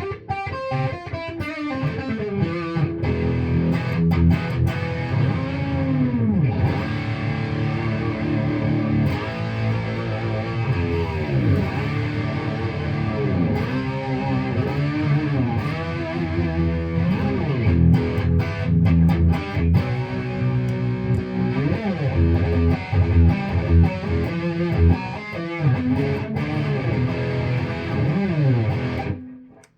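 1986 Hamer Chaparral electric guitar played through an amplifier on the split-coil plus neck pickup setting: a lead line of sustained notes with repeated bends up and back down in pitch. It stops abruptly near the end.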